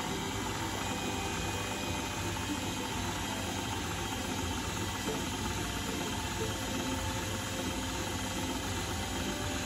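Electric stand mixer running steadily on low speed, its wire whisk beating runny cake batter in a glass bowl.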